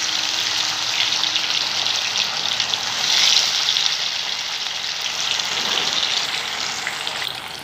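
Masala- and cornflour-coated catla fish pieces frying in hot oil in a kadhai: a steady crackling sizzle of freshly added pieces, swelling a little about three seconds in.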